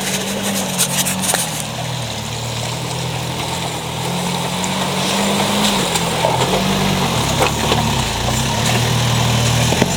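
Suzuki Vitara's engine running under load off-road, its pitch stepping up and down several times as the throttle changes, with a few sharp knocks or rattles near the start.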